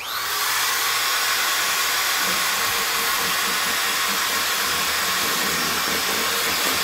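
Corded DeWalt electric drill starting up with a brief rising whine, then running steadily at full speed as its bit bores into an iPad.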